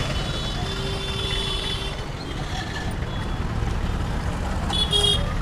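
Busy street traffic noise, a steady low rumble with a faint steady tone for the first couple of seconds and a brief high-pitched tone near the end.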